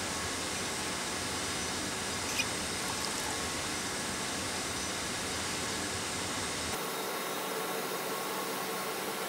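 Steady hiss of room background noise, with one brief faint click about two and a half seconds in; the low rumble in the background drops away near seven seconds in.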